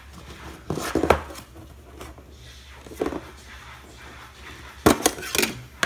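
A metal Pokémon card tin being opened and handled: sharp clicks and knocks about a second in, once more at about three seconds, and a louder cluster near the end.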